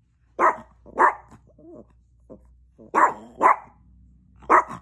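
Chihuahua barking: five short, sharp barks, two, then two more, then one, with pauses between.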